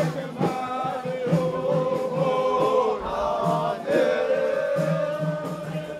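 A group of men chanting a Sufi hymn together in unison, holding long notes and sliding between them.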